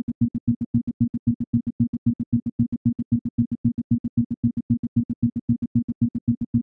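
Isochronic tone: a low tone switched fully on and off in even, rapid pulses, about eight a second, made for brainwave entrainment.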